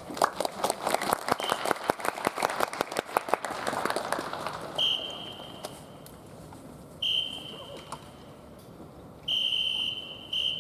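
Drum corps leader's whistle blown as a signal: three steady high blasts of about a second each, the last one longer with a brief break in it. Before them, over the first few seconds, comes a fading spell of rapid light taps.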